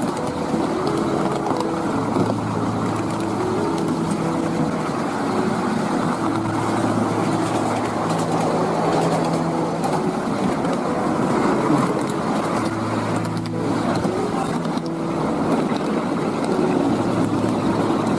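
A 7¼ in gauge miniature railway train running along the track, its wheels giving a continuous rumble on the rails, with steady hums that fade in and out every few seconds.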